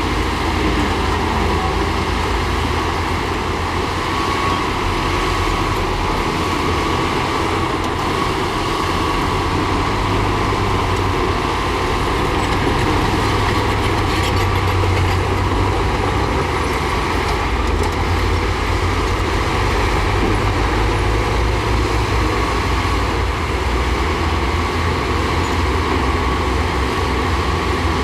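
Diesel engines of heavy earthmoving machinery, a bulldozer and dump trucks, running steadily under load with a continuous low rumble.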